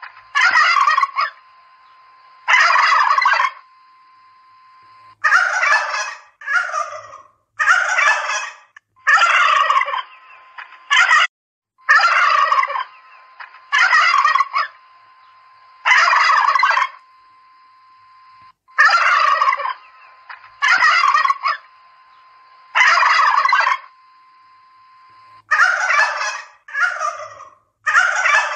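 Domestic turkeys gobbling over and over, about sixteen separate gobbles with short gaps between them, some coming in quick pairs. A faint steady tone runs beneath, heard between the calls.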